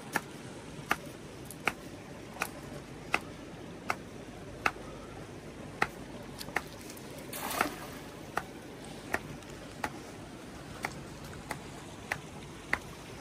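Steady rhythmic knocking: sharp strikes about one every three-quarters of a second, with a short rushing noise about seven seconds in.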